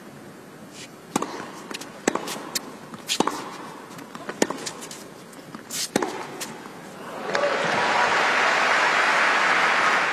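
Tennis serve and rally: a racquet strikes the ball about once a second for around six seconds. From about seven seconds in, the crowd applauds loudly as the point is won.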